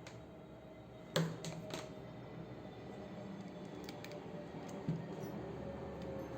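Small clicks and taps from handling drill accessories: a sharp click about a second in, followed quickly by two lighter ones, then a few faint ticks and a soft knock near five seconds, over a faint steady hum.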